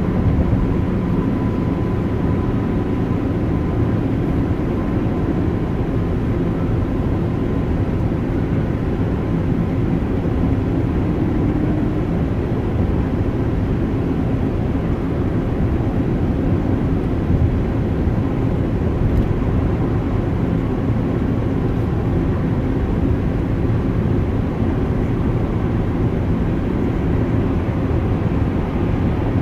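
Steady road noise inside a car cruising on a freeway: tyre rumble and engine drone at a constant level.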